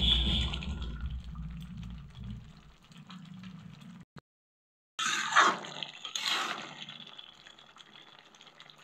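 A spatula stirring thin, simmering egg curry in an aluminium kadhai, the gravy sloshing and bubbling. The sound cuts out completely for about a second midway, then two louder swishes through the gravy follow and die away.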